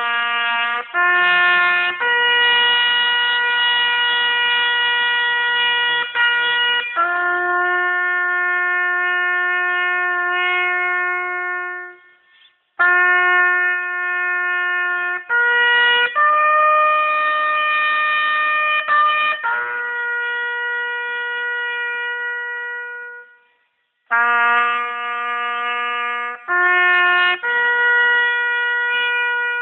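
A lone trumpet playing a slow funeral call in long held notes, with two short breaks between phrases: a last salute sounded at a military funeral.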